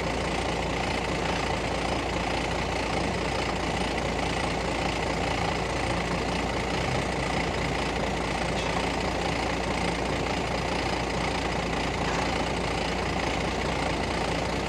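Mobile crane's engine running steadily at a constant pace.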